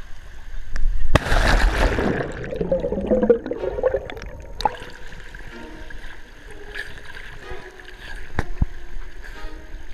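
Splash as the action camera plunges into the seawater about a second in, followed by bubbling and gurgling around the submerged housing. Then quieter, muffled water noise with a couple of sharp knocks.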